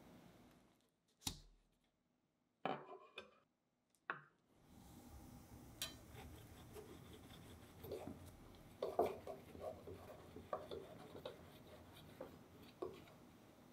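Long serrated knife sawing horizontally through a sponge cake, with soft scraping and small clicks as the blade rides along the cutting guide bars. Before the cutting starts, a few sharp taps sound as the cake is handled and set down.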